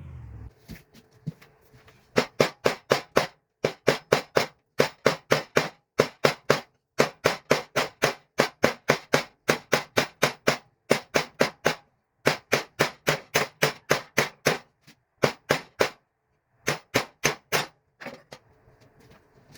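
Hand hammer striking steel on an anvil in quick runs of blows, about four a second, with short pauses between runs.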